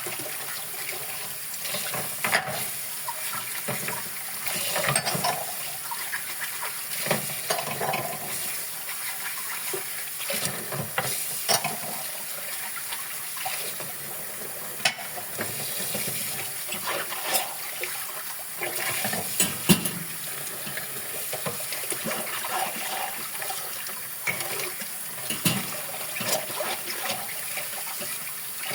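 Dishes being washed by hand under a running tap: a steady stream of water with frequent short clinks and knocks of dishes.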